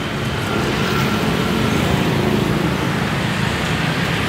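Steady road traffic noise from passing vehicles, an even low hum with no distinct events.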